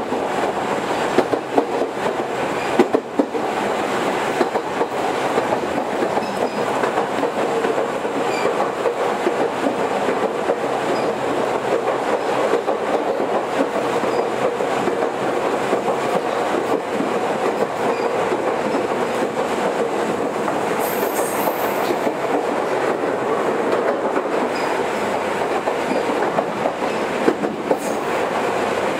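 Toyohashi Railway 1800-series electric train running between stations, heard from on board: a steady rumble of wheels on rail with a few rail-joint clicks near the start.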